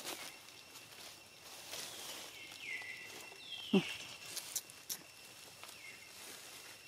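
A few short, high animal calls that drop in pitch and then hold, the clearest two about two and a half and three and a half seconds in. Behind them is quiet outdoor background with a faint steady high tone and a few soft clicks and rustles.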